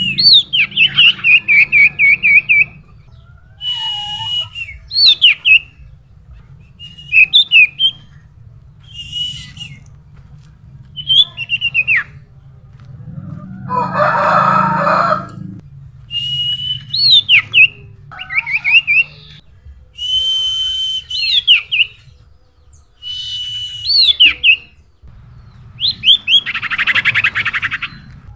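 Common iora singing: phrase after phrase of high whistled notes, quick trills and sharply falling notes, with short pauses between. Two longer rasping bursts come about halfway through and near the end.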